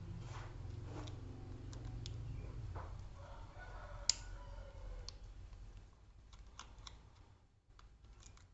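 Light plastic clicks and taps from a laptop being handled and taken apart, with one sharper click about four seconds in, over a low steady hum that fades after about three seconds.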